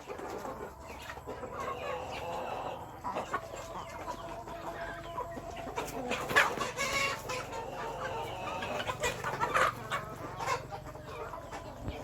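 A flock of domestic chickens clucking and calling, many short overlapping calls, with two louder calls about halfway through and a few seconds later.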